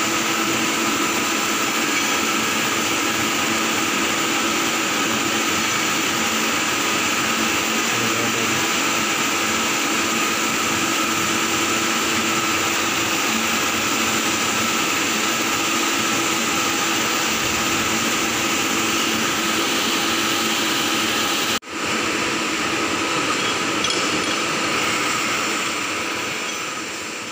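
Steady machine noise in a metal workshop: a constant whooshing hum with a few fixed tones. It cuts out for an instant about three quarters of the way through, then resumes and fades away near the end.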